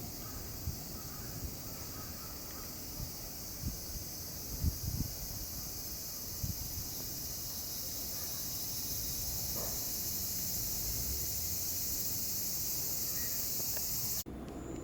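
A steady, high-pitched insect chorus with scattered low thumps, cutting off abruptly near the end.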